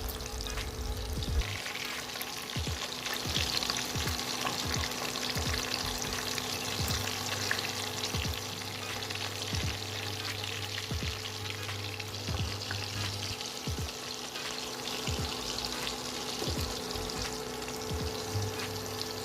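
Marinated boneless chicken pieces frying in hot oil in a pan: a steady, dense sizzle with fine crackling.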